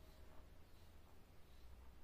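Near silence: low room hum.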